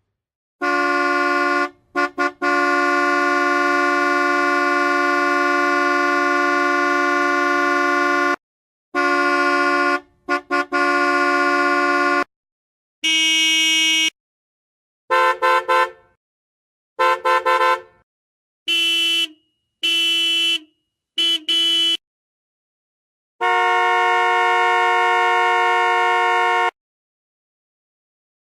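Car horn honking again and again: a steady two-note tone in blasts of very different length, from quick taps to one held about six seconds near the start and another of about three seconds near the end.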